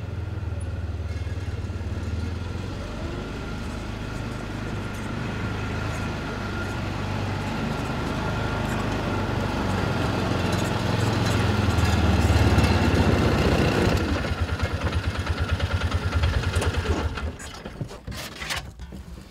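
Small utility vehicle engine running steadily and growing louder, then idling with an even pulse before it shuts off about three seconds before the end. A few knocks of plastic sap jugs being handled follow.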